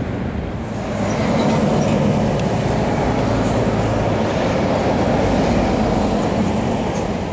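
A nearby train running past: a loud, steady rumble that swells about a second in and then holds.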